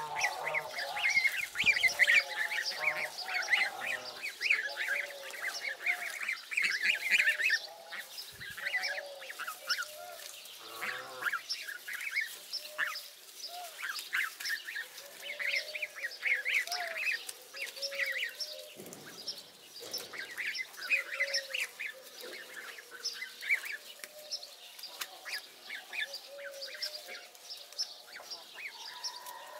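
A flock of young African goose goslings calling continuously while feeding: a chorus of short high peeps with lower calls mixed in. It is busiest and loudest in the first several seconds.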